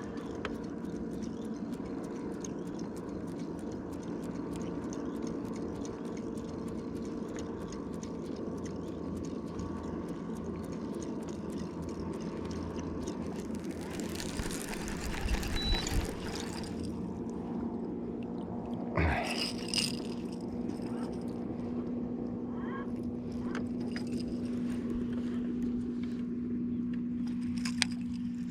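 A motor humming steadily, with water sounds and a couple of louder noisy surges about halfway through.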